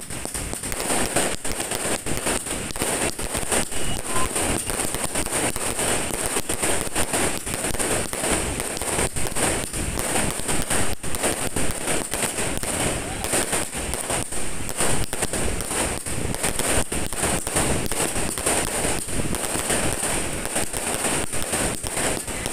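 Aerial fireworks going off in rapid succession: a dense, continuous run of sharp pops and crackles as shells launch and burst one after another.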